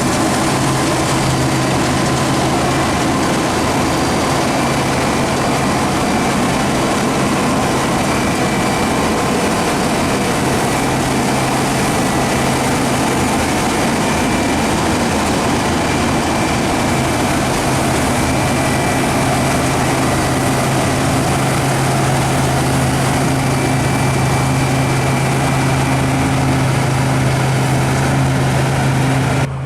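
New Holland combine harvester running steadily while harvesting wheat: a constant low engine hum under the dense whirring noise of the threshing machinery.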